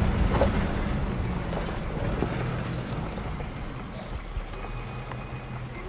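Low, steady engine-like hum that slowly fades.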